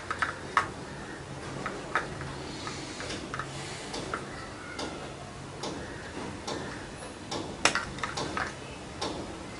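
Light plastic clicks and taps as hands work a nozzle piece into an inkjet ink cartridge. They come scattered, a few sharp ones at the start and a quick run of louder clicks near the end.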